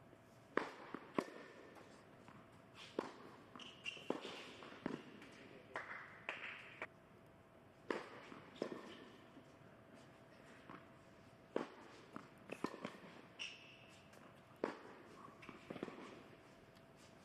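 Tennis ball struck by rackets and bouncing on an indoor hard court, sharp hits about a second or two apart with short high squeaks between them, in a large echoing hall.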